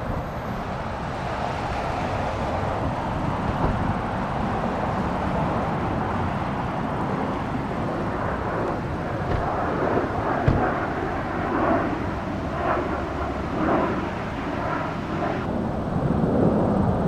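Jet airliner engine noise near an airport, a steady rush that changes abruptly near the end.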